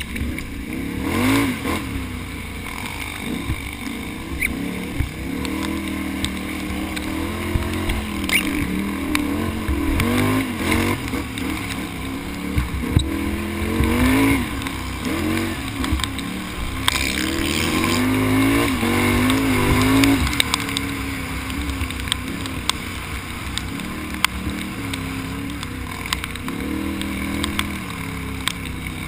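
Can-Am Outlander XXC ATV's engine revving hard, the pitch surging up and falling back again and again, with a few sharp knocks. About two-thirds of the way in it settles to a steadier, lower run.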